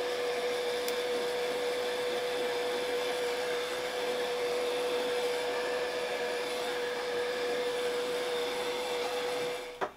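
Handheld heat gun running on its high setting: a steady rush of blown air with a constant whine. It switches off just before the end.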